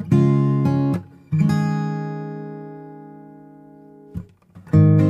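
Background music of strummed acoustic guitar. A chord struck about a second in rings out and fades for nearly three seconds, and the strumming resumes near the end.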